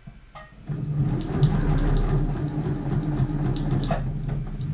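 Electric domestic sewing machine running at a steady moderate speed, its needle stitching through a sheet of paper; it starts under a second in and runs on to the end.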